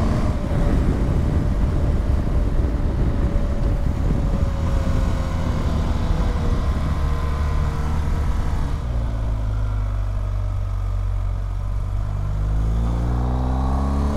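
BMW R1250GS boxer-twin engine running at road speed under heavy wind rush on the microphone. About nine seconds in, the wind eases and the engine's steady note comes through clearly, then its pitch climbs near the end as the bike accelerates.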